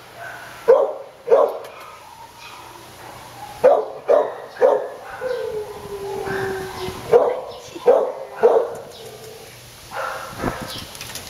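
Dogs barking in shelter kennels, in clusters of two or three sharp barks, with a long held cry about halfway through.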